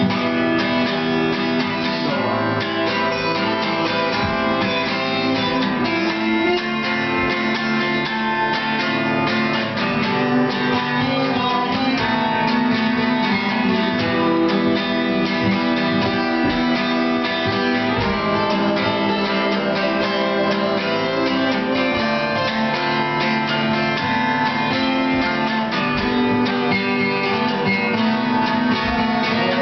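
Two acoustic guitars in an instrumental break of a rock song: strummed chords with a picked lead line played over them.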